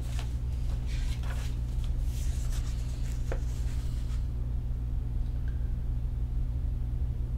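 A picture book's pages being turned and handled: soft paper rustles and a few light taps in the first few seconds. A steady low hum runs underneath throughout.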